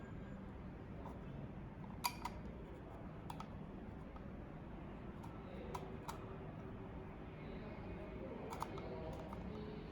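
A few light, sharp clicks, spaced irregularly, as a small USB-to-SATA adapter board is handled and set onto a hard drive's circuit board, over faint steady background noise.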